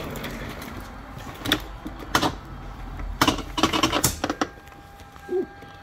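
Sharp plastic clicks and knocks from a car door trim panel being pried and worked loose on the door, with a quick run of several clicks about three to four seconds in.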